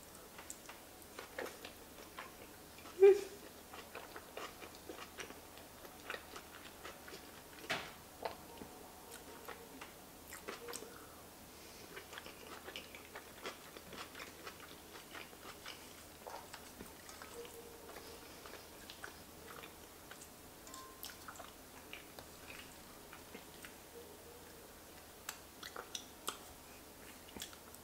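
Close-miked chewing and mouth sounds of a person eating soft enchiladas: many small wet clicks and smacks, with a short louder sound about three seconds in.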